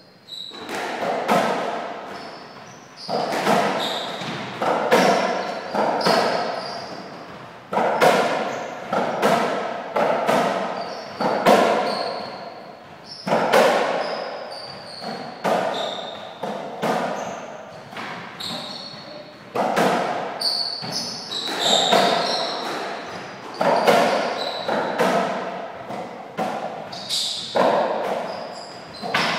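A softraquet rally: the ball is struck by racquets and smacks off the court walls again and again, each hit ringing on in the hall, with short squeaks of shoes on the court floor between the hits.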